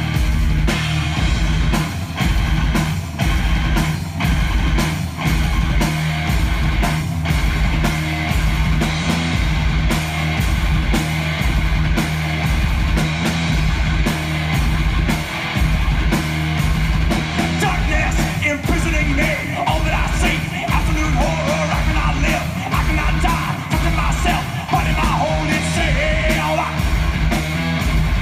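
Heavy metal band playing live: distorted electric guitars over a fast, even pulse of kick drums, with a bending lead guitar line coming in over the second half.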